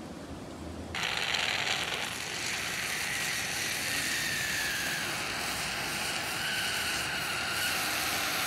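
Wood fire crackling and hissing under a whole crab roasting on the burning logs, coming in suddenly about a second in and running on steadily, with faint thin whistling tones over the hiss.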